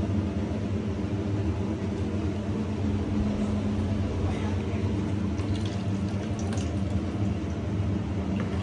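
Thick jaggery-and-ghee syrup being poured and scraped with a ladle from a steel pot into a steel bowl, over a steady low hum.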